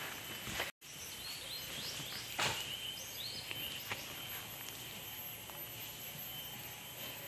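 Outdoor ambience: a steady hiss with two short runs of quick bird chirps, about a second in and again around three seconds, and a single sharp knock about two and a half seconds in. The sound cuts out completely for a moment just before one second.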